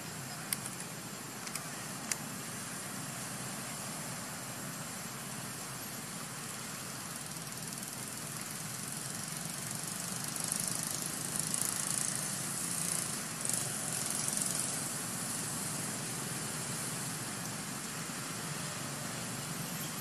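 Steady outdoor background noise, a low rumble under a hiss, with the high hiss swelling for a few seconds about halfway through and a few faint clicks in the first two seconds.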